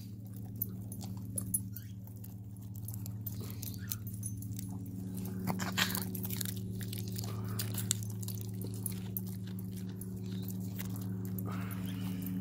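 Chihuahua biting and chewing a raw asparagus spear, with scattered crisp crunches, over a steady low hum.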